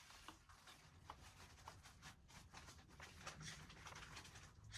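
Near silence: room tone with a few faint soft clicks and rustles.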